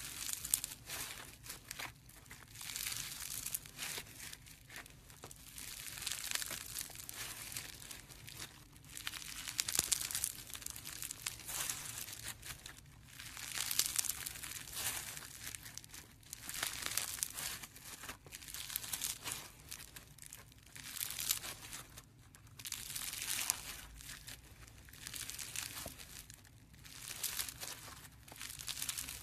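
Orange floam, slime packed with tiny foam beads, squeezed and pressed between the fingers, crackling and popping. The crackle swells and fades in waves every three to four seconds as each squeeze is made and released.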